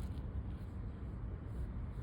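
Pen nib scratching on paper while writing, over a low steady background rumble.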